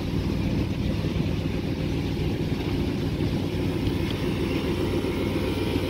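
1958 Ford Fairlane 500 Skyliner's V8 engine idling steadily while its retractable hardtop mechanism is working the roof.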